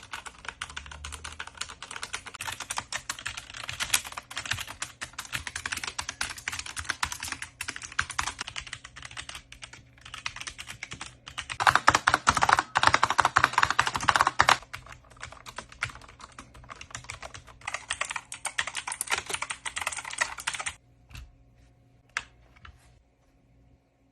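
Fast typing on computer keyboards, with dense rapid key clicks in several stretches that change in loudness and tone as one keyboard gives way to the next. The loudest stretch comes a little before the middle. The typing stops about three-quarters of the way through, leaving a few single clicks.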